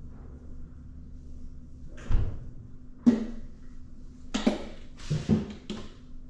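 Kitchen cupboard doors or drawers being shut, about six separate knocks and clunks starting about two seconds in, the first a deep thump, the rest sharper and bunched together near the end, over a steady low hum.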